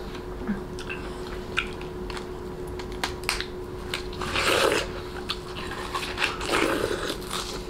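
Bichon Frise biting and chewing watermelon flesh off a hand-held rind: small wet crunches, with two louder bites about four and six and a half seconds in. A steady faint hum runs underneath.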